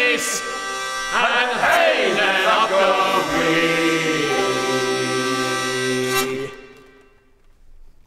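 Mixed voices singing together, with a hurdy-gurdy and a plucked string instrument, in the closing flourish of a 17th-century English Civil War ballad. They end on a long held chord that stops about six and a half seconds in and dies away.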